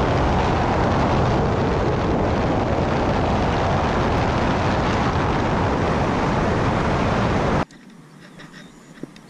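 Steady, loud rush of wind and road noise on a camera mounted outside a moving car. It cuts off suddenly about three quarters of the way through, leaving faint outdoor ambience with a small click.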